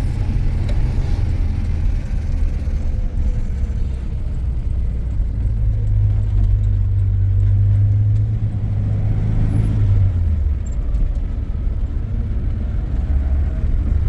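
Steady low rumble of a running road vehicle, with a stronger hum for several seconds in the middle.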